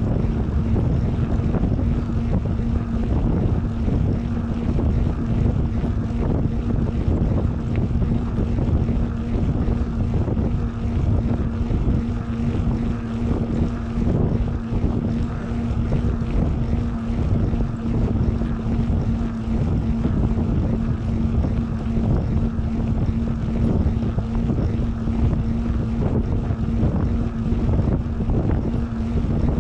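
Wind buffeting the microphone of a camera mounted on a moving mountain bike, with a steady droning hum under it.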